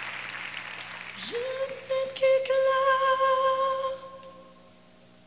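Applause dies away, then a woman sings live into a microphone: one long note that slides up at the start, is held for about three seconds and fades out.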